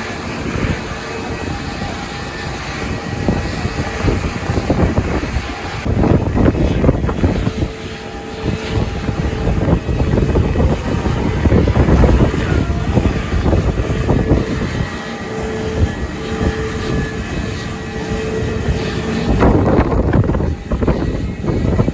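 Airbus A320neo's CFM LEAP-1A turbofan engines running, a steady mix of whining tones over a deep rumble, with gusts of strong wind buffeting the microphone and making the low end swell and drop unevenly.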